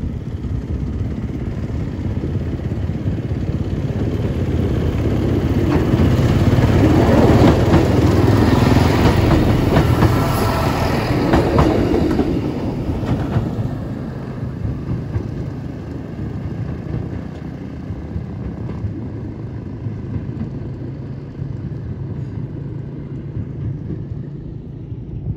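Diesel multiple-unit passenger train passing close by, its engines and wheels clattering on the rails. The sound builds up, is loudest for several seconds in the middle, then fades away.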